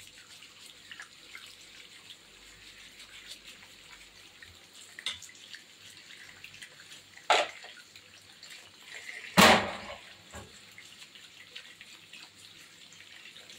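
Kitchen tap running onto tomatoes in a stainless steel sink while hands rub and turn them under the stream, water splashing. Two sudden louder sharp sounds break in about seven and nine seconds in, the second the loudest.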